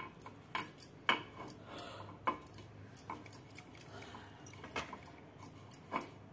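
Scattered light clicks and taps against an appe pan as oil is brushed and rubbed around its cavities.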